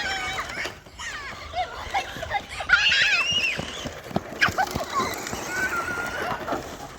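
A child's excited high-pitched squeals and shouts, the loudest squeal about three seconds in.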